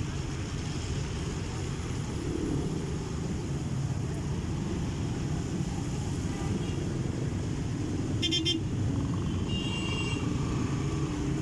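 Road traffic running steadily with a low rumble, and a vehicle horn honking briefly about three-quarters of the way through.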